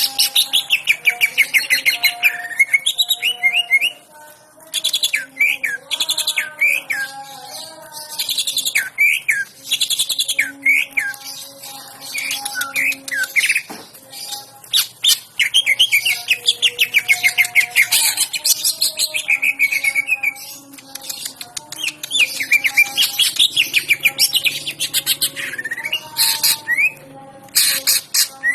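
Green leafbird (cucak ijo) singing hyperactively, pouring out its full repertoire of mimicked phrases. The song comes as loud, fast trills and quick sweeping chirps, broken by short pauses.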